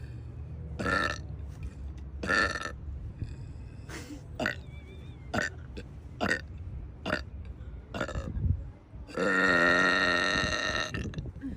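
A woman burping: a string of short burps, then one long, deep, drawn-out burp of about two seconds near the end, over a low steady hum.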